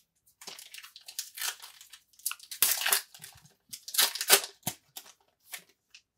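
Shiny foil wrapper of a Topps Star Wars Holocron trading card pack being torn open and crinkled in the hands, in a run of irregular rustling bursts.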